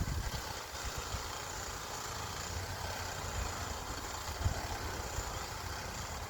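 Wind buffeting the microphone: an uneven low rumble over a steady outdoor hiss.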